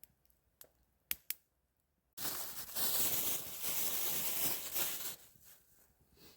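A few sharp clicks, then a loud rustling, crinkling noise that starts suddenly about two seconds in and lasts about three seconds.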